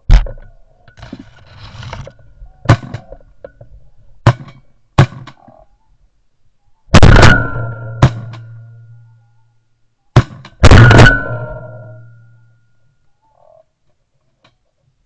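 A volley of shotgun shots at a flock of ducks overhead: about eight sharp reports, the two loudest about seven and ten and a half seconds in, very close and each followed by a long fading echo.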